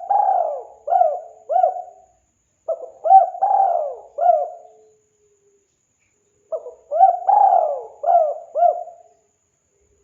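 Spotted dove (tekukur) cooing: phrases of four or five short coos, repeated about every three to four seconds with short pauses between.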